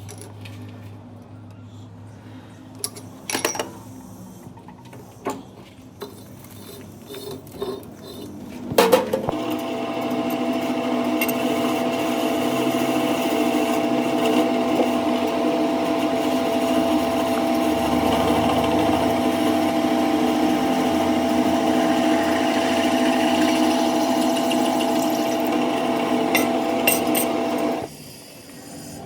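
A few light metal clicks and knocks, then a workshop machine's electric motor starts about nine seconds in and runs with a steady hum before cutting off suddenly near the end.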